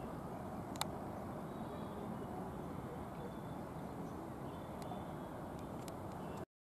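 Steady low outdoor background rush with faint high chirps, a sharp click about a second in and a few fainter ticks later, cutting off abruptly near the end.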